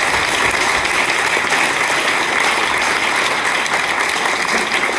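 Audience applauding: many hands clapping at a steady, even level.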